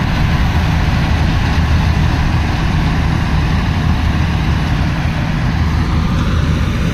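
Combine harvester running steadily while it cuts paddy; its engine gives a loud, even low drone.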